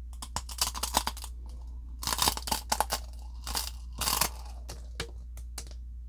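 Chewing and crunching of dry, uncooked Samyang instant ramen noodles bitten straight from the block: clusters of crisp cracks that thin out near the end.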